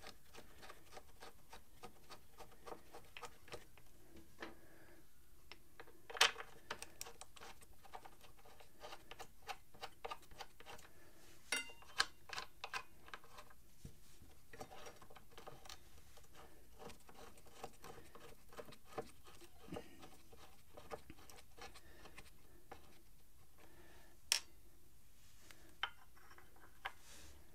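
Motorcycle front brake caliper and ABS sensor being handled and fitted: scattered light metallic clicks and taps, the sharpest about six, twelve and twenty-four seconds in, over a faint steady ticking.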